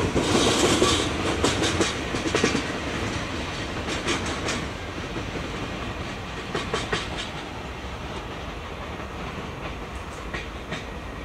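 Freight train of container flat wagons rolling away over the track: groups of clickety-clack as wheel sets cross rail joints, over a low rumble that fades steadily as the train draws off.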